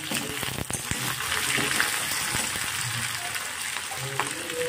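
Chopped onions sizzling in hot mustard oil in an iron kadhai, stirred with a metal skimmer spatula. A few clicks of the spatula against the pan come in the first second.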